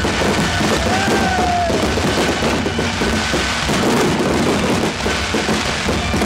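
Fireworks barrage: a dense, continuous run of bangs and crackling, with a few whistles gliding up and down through it.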